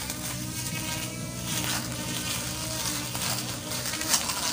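Electric grass trimmer running steadily with a buzzing motor whine as its plastic blades cut through grass. There is a sharp knock about four seconds in.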